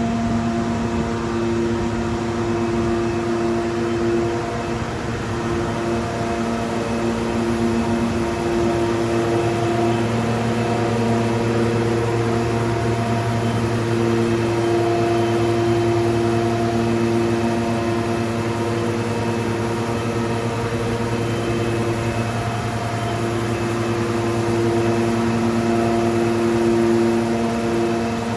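PC6000 concrete pavement grinding machine cutting an NGCS surface into concrete pavement. Its engine and diamond cutting head run continuously with a steady hum that swells and eases every several seconds.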